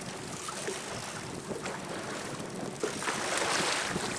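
Wind buffeting the microphone over water lapping against a boat, with a louder rush of noise about three seconds in.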